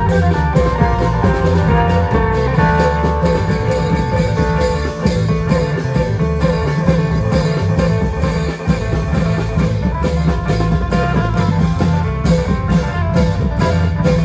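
Isan klong yao long-drum band playing loudly: dense drumming and a heavy bass under a steady melody line, running without a break.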